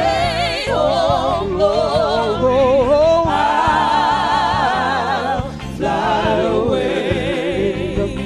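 Background music: a slow ballad with a sung melody, the voice holding long notes with heavy vibrato and dipping briefly a little past the middle.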